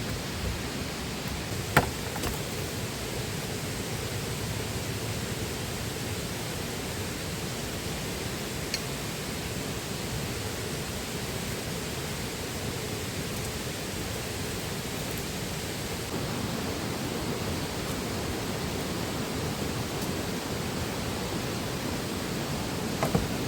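River water flowing steadily, a constant rushing hiss, with a sharp click about two seconds in and a couple of fainter clicks near the end.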